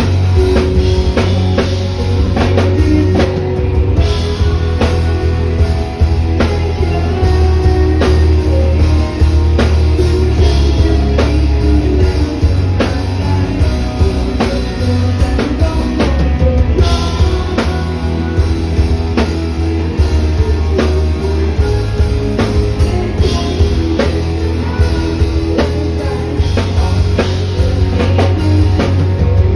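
A rock band playing live at a sound check: drum kit, guitar and bass with a singer's voice over them.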